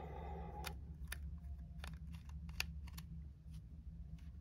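Small scattered clicks and taps of fingers handling a handheld oscilloscope's circuit board and plastic case, with a short rub or scrape at the start, over a low steady hum.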